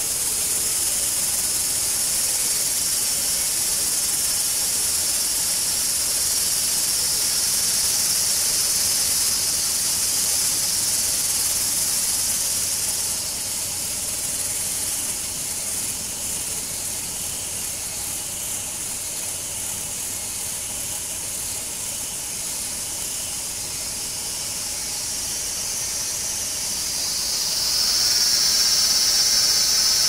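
Steady high-pitched insect chorus that drops back about halfway through. Near the end a louder, pitched buzz swells in over it.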